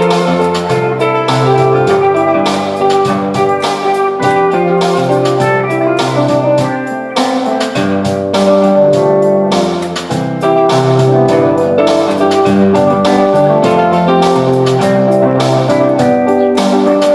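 Instrumental break in a rock song: guitar and keyboard playing over a steady beat, with no singing.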